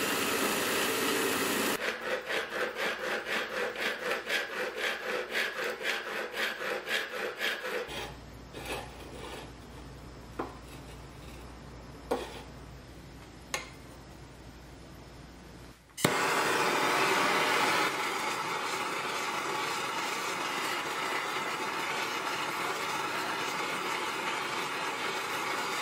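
A hand file rasping back and forth along the edge of a steel saw-blade knife blank, about three strokes a second, for several seconds. A quieter stretch follows with a low motor hum and a few light clicks. About two-thirds of the way in, a blowtorch starts with a click and then hisses steadily as its flame heats the blade.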